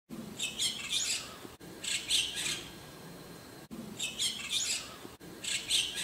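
White-cheeked starling calling: four short bursts of rapid chattering notes, each under a second long, coming in two pairs.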